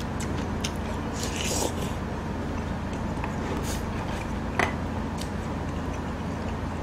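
Close-miked eating: chewing and mouth sounds, with chopsticks clicking against bowls, the sharpest click about four and a half seconds in. A steady low hum runs underneath.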